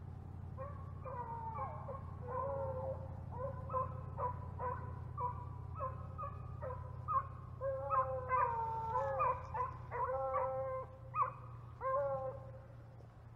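A pack of beagles baying and howling on a rabbit's trail, several voices overlapping in drawn-out calls that slide down in pitch. The calls come thicker and louder in the second half.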